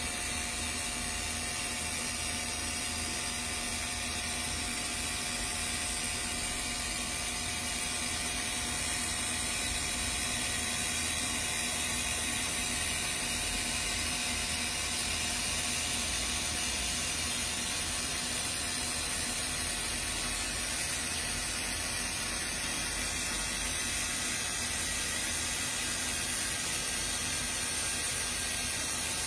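Laser marking machine running while it frosts a mirror: a steady whir with a high hiss, unbroken and even in level.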